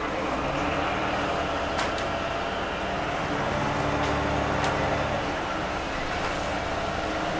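Iveco Urbanway 12M city bus engine and drivetrain running as the bus drives, heard from inside the passenger cabin. The engine pulls harder for a second or two around the middle, with a couple of light clicks from the cabin.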